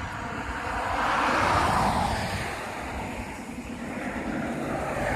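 A vehicle passing, a rushing noise that swells to a peak about one and a half seconds in and fades away, with another starting to build near the end.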